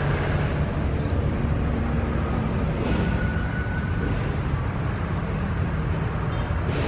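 Diesel locomotive of a fuel tank-wagon train running with a steady low rumble as it creeps toward the station.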